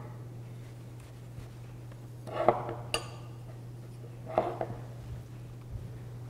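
Steel plane blade worked by hand on a fine sharpening stone to polish the edge: two short scraping strokes about two seconds apart, with a light metallic clink between them.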